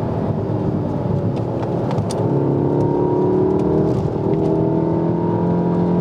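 The MK7 Golf R's turbocharged four-cylinder engine, heard from inside the cabin under hard acceleration on track. Its note rises, dips briefly about four seconds in, then climbs again.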